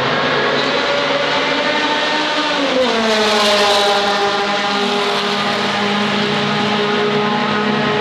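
Racing car engines at high revs; one car passes close about three seconds in, its note dropping in pitch as it goes by and loudest just after, with engine notes still running afterwards.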